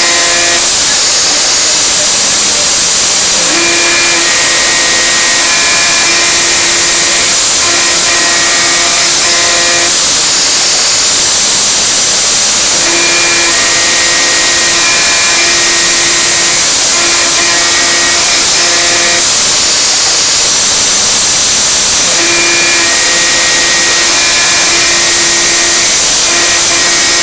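CNC router spindle at 10,000 rpm driving a 1/8-inch carbide spiral up-shear bit through 1/8-inch 2024-T3 aluminium sheet in shallow 0.020-inch passes. It makes a steady high hiss with a pitched cutting tone on top. The tone comes in runs of several seconds and drops out briefly about every nine seconds.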